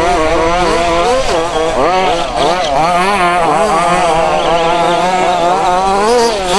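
Several 1:5-scale petrol RC buggies racing, their small two-stroke engines revving up and down over and over as they throttle on and off, the engine notes overlapping.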